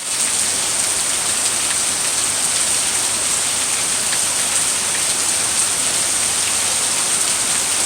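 Steady rain falling: an even hiss of water with a few faint separate drop ticks, and a thin, constant high-pitched hiss over it.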